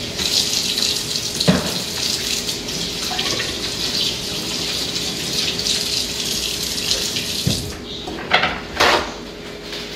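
Kitchen tap running water into the sink, turned off about three-quarters of the way through, followed by a couple of short knocks.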